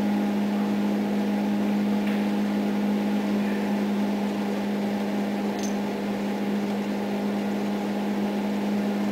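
Steady electrical machine hum: one strong low tone with fainter overtones above it, not changing in pitch or level. A faint tick about five and a half seconds in.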